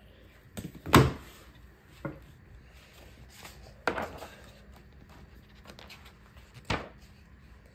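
Hardcover picture book being handled on a wooden table: a sharp knock about a second in, then the stiff pages being turned, with smaller knocks a few times after.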